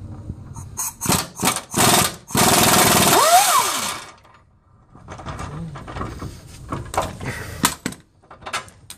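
Power ratchet on a long extension spinning out an 18 mm control arm bolt: a few short bursts, then one longer run of about a second and a half. Lighter clicks and clinks of the tools on metal follow.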